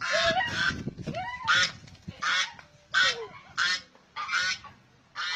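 White domestic geese honking over and over, one short call roughly every three-quarters of a second, growing fainter toward the end.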